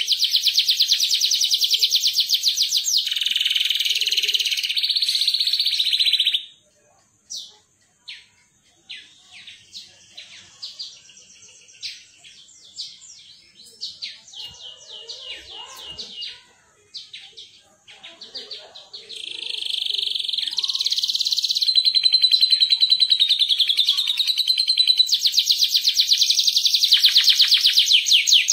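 Domestic canary singing: long, fast rolling trills that break off about six seconds in to scattered short chirps and notes, then build back into continuous rolling trills about two-thirds of the way through.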